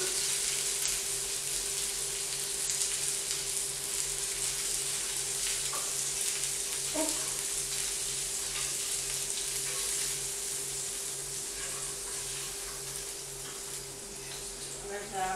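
Beef burgers sizzling in hot oil in a frying pan, with a few light taps of a metal slotted spatula as they are lifted out. The sizzle eases off over the last few seconds.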